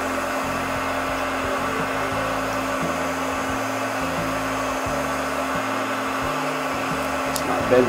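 Heat gun running steadily, blowing hot air with a constant hum.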